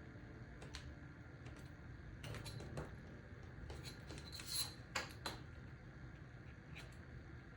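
Scattered light clicks and taps of small sculpting tools being handled and set down on a work surface, a few close together around the middle.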